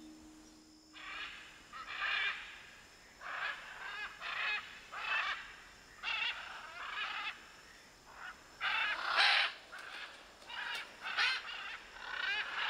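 A flock of scarlet macaws giving loud, harsh squawks, about a dozen separate calls one after another.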